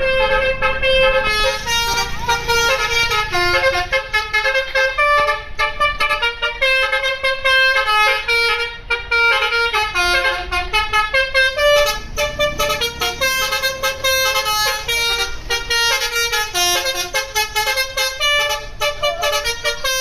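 Bus 'telolet' multi-tone horn playing a fast tune of short notes that step up and down in pitch without pause, over a low rumble.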